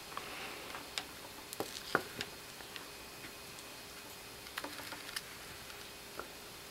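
Light clicks and taps of small paper-covered picture blocks knocking together as a hinged folding block puzzle is turned by hand. The clicks are scattered, with a sharper one about two seconds in and a quick run of them around five seconds in.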